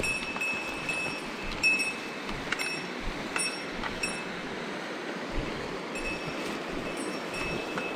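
Steady rush of a mountain stream, with a small metal bell giving short, irregular rings, like a bear bell jingling with each step.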